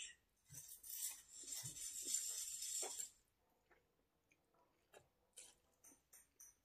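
Close-miked eating: a noisy slurp of ramen noodles lasting about two and a half seconds, then soft chewing with small mouth clicks.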